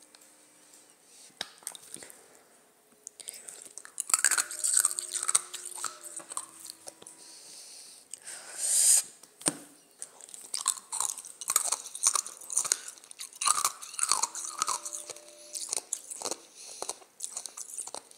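Ice cubes being bitten and crunched between the teeth, close to the microphone: a few isolated cracks at first, then from about four seconds in a dense run of crisp crunches. A short, louder hiss, like a breath, comes just before the middle.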